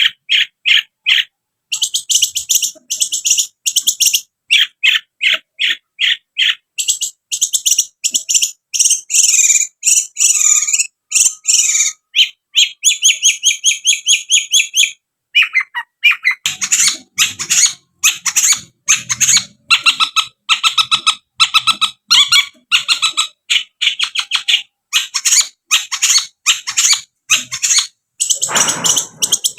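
Long-tailed shrike (cendet) singing a loud, rapid song of short high notes in fast chattering runs, broken by a few brief pauses.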